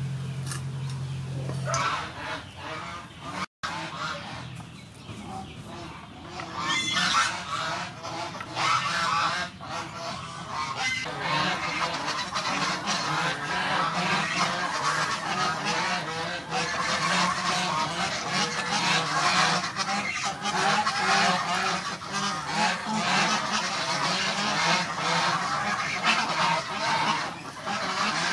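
A flock of domestic fowl honking and chattering without pause, growing louder and busier about seven seconds in.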